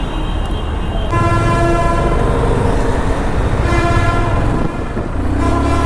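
Vehicle horns honking in traffic: a long honk about a second in, a shorter one around four seconds, and another near the end. Under them runs a steady low engine and road rumble from the moving motorcycle.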